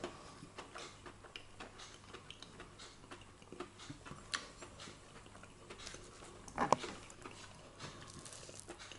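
Quiet eating sounds: scattered light clicks and taps of cutlery on a plate and chewing, with one brief louder sound about two-thirds of the way through.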